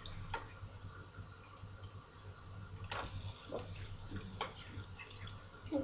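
A metal fork clicking and scraping against a frying pan a handful of times as pumpkin cutlets are turned, over a faint frying sizzle and a steady low hum.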